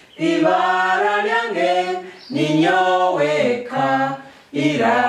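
A small group of adults singing the letter sounds of the Runyoro-Rutoro alphabet in unison, unaccompanied, as an alphabet song. The singing comes in three phrases with brief pauses between them.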